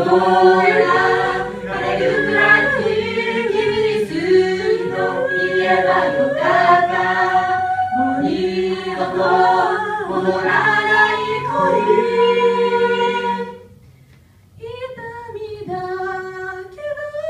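Mixed-voice a cappella group of six singing a pop song into microphones, several voice parts stacked in harmony with no instruments. About three-quarters of the way through the sound breaks off for a moment, then a thinner, softer phrase with fewer voices follows.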